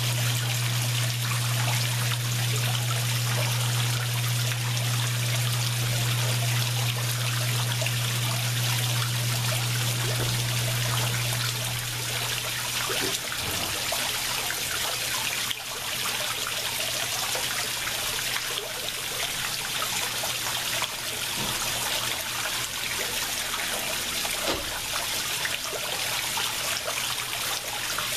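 Water steadily trickling and splashing into a koi pond. A low steady hum sounds under it and fades out about twelve to thirteen seconds in.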